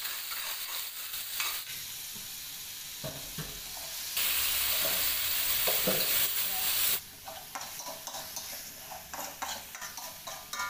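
Ground chili sambal sizzling as it fries in hot oil in a wok, with a metal spoon scraping and stirring it. The sizzle grows much louder for about three seconds near the middle, then drops back, with quick spoon scrapes against the pan.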